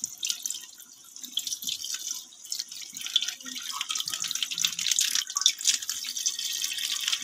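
Chicken curry boiling in a pot while milk is poured into it in a thin stream: a dense, continuous patter of bubbling and splashing.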